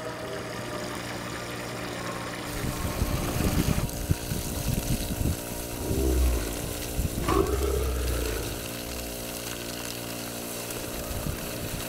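Water transfer pump running steadily, pushing pond water through a pipe into a stock tank that is nearly full, with water splashing into the tank. The splashing grows louder a couple of seconds in, and a few low thuds come near the middle.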